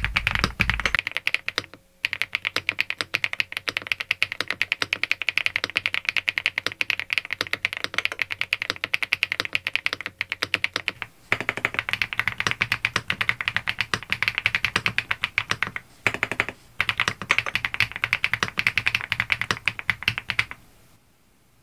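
SPM Joyakdol 75 mechanical keyboard in its stock build, typed on in fast, continuous runs of key clicks. There are a few short pauses, and the typing stops about a second before the end.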